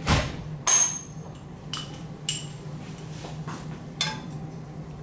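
Metal measuring spoons clinking against each other and the salt container while salt is measured out: five or six light clinks, the loudest under a second in, over a steady low hum.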